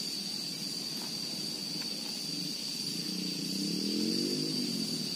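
Steady high insect trill over low outdoor background noise, with a low engine drone of a passing vehicle that swells about three seconds in and fades before the end.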